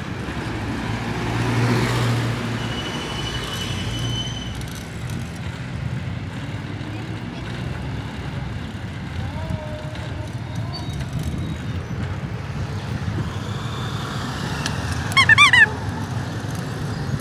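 Steady motorcycle engine and road noise while riding. About fifteen seconds in comes a brief, loud run of warbling, rising chirps.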